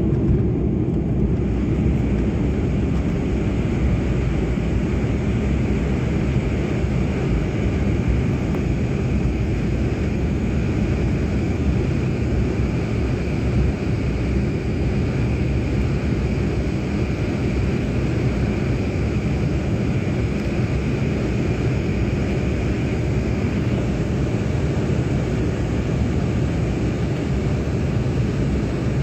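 Cabin noise of a KLM Cityhopper Embraer regional jet at takeoff thrust: the turbofan engines run with a steady rushing noise and a high whine as the plane goes from its takeoff roll on the runway into the climb.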